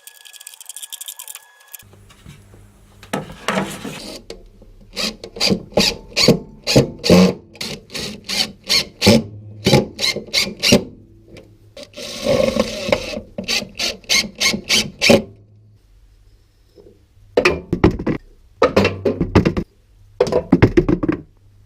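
Wood scraping and knocking in many short repeated strokes, with a longer scrape partway through, over a low steady hum that starts about two seconds in.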